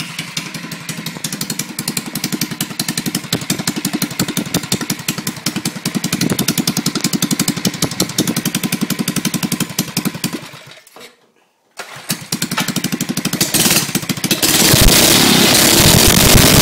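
Small single-cylinder engine of a 2.5 hp Doodlebug mini bike, governor removed, ported and polished, with a custom homemade header, running with its wheel off the ground. It putts along in distinct firing pulses, breaks off for about a second two-thirds of the way through, then revs up much louder and higher near the end.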